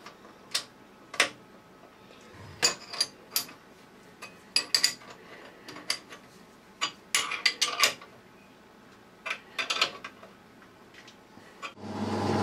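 Scattered light metal clicks and clinks of a spanner and nut as a drawbar is fitted and tightened on the end of a Boxford lathe spindle. Near the end the lathe's motor starts and runs with a steady hum, growing louder as it comes up to speed.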